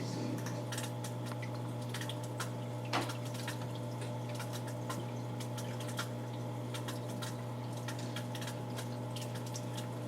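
Aquarium filter running with a steady low hum, water trickling and dripping, and scattered small clicks, one sharper click about three seconds in.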